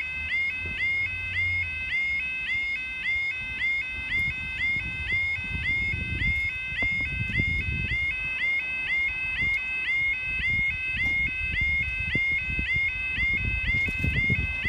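Level crossing audible warning alarm sounding: an electronic two-tone warble repeating about twice a second, warning that a train is approaching and the barriers are coming down.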